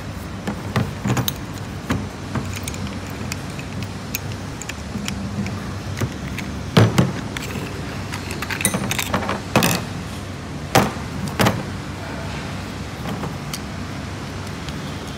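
Metal clicks and knocks of an angle grinder's cutting disc, flange nut and washers being unscrewed by hand and set down on a hard plastic tool case, the loudest knocks coming about seven, nine and a half and eleven seconds in. A steady low hum runs underneath.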